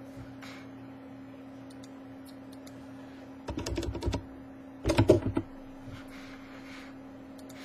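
Computer keyboard typing: two short bursts of keystrokes, about three and a half and five seconds in, over a steady low hum.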